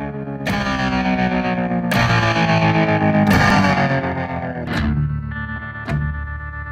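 Background rock music on distorted electric guitar: heavy chords struck about every second and a half, each left ringing.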